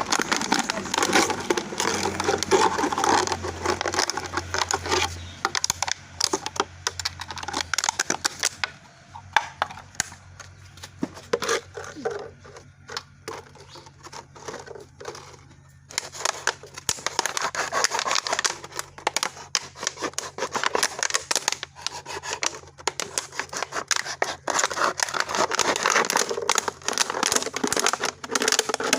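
Plastic bottles being cut and handled, with irregular crackling and crinkling. It goes much quieter for several seconds in the middle.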